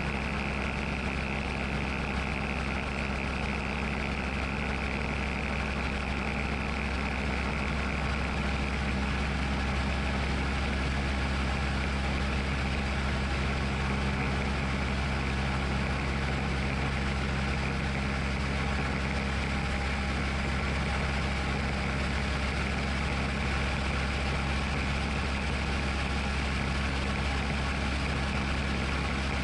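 Tecnam P2002 Sierra's Rotax 912 four-cylinder engine and propeller droning steadily in flight, heard inside the cabin, a little louder from about nine seconds in.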